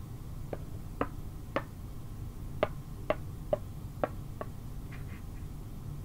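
Small carved wooden figures being handled and set down, giving a series of light wooden clicks and knocks, about eight, unevenly spaced, the last few fainter.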